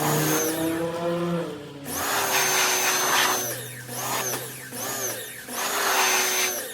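Westinghouse 2300 PSI electric pressure washer spraying in five bursts, each about a half-second to a second and a half long, as the trigger is squeezed and released. The pump motor winds up and down with each burst under the hiss of the high-pressure water jet.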